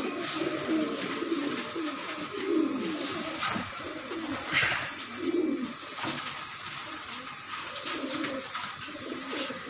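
A flock of domestic pigeons cooing, many low coos overlapping one after another.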